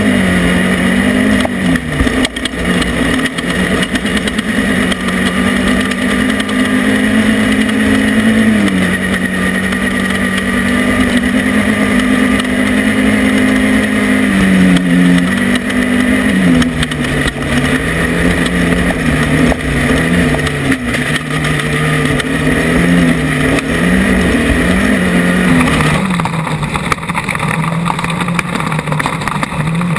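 Off-road race vehicle's engine running hard, its pitch stepping up and down as the revs change, over a dense rush of wind and terrain noise with scattered knocks. About 26 seconds in the hiss in the upper range thins out while the engine carries on.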